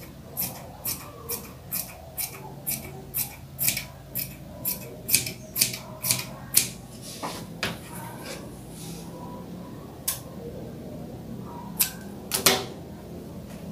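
Dressmaking scissors snipping through viscose fabric in a steady run of cuts, about two a second, for the first half. Then a few scattered snips, with the loudest clicks of the blades near the end.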